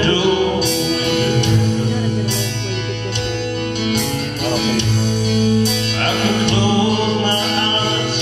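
Acoustic guitar accompanying a gospel song, a chord struck about every second and a half and ringing over sustained low notes.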